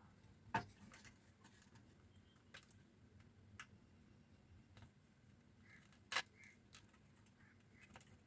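Near silence broken by a few faint clicks and taps of soldering work on an amplifier board, the clearest about half a second in and another about six seconds in.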